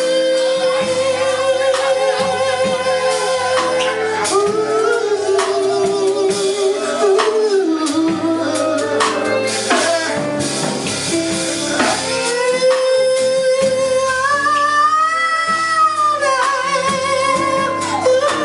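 Live R&B band playing a breakdown while a singer sings long held, wavering notes without clear words, over drums and sustained chords.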